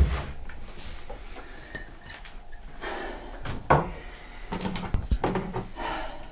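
Kitchen clatter of crockery and cutlery being handled: a knock right at the start, then scattered clinks and sharp knocks, the loudest a little before four seconds and around five seconds in.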